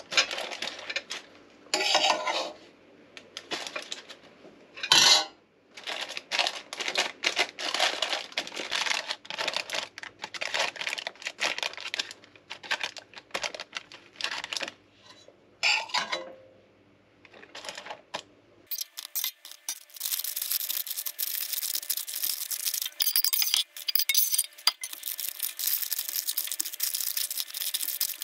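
A metal spoon scraping and clinking as crumbly goat cheese curds are scooped from a stainless steel pan and packed into a parchment-lined cheese mold. It comes in quick runs of short strokes with brief pauses, and about two-thirds through it turns thinner and brighter.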